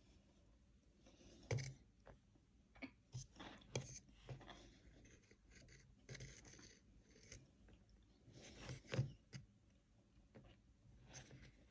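Cornstarch-covered chalk crunching in soft, irregular bursts, a dozen or so short crunches and squeaks with the loudest about a second and a half in and about nine seconds in.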